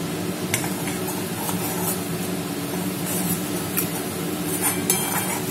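A spatula stirring and scraping thick tomato paste in an aluminium kadai, with scattered light clinks, over a steady low hum.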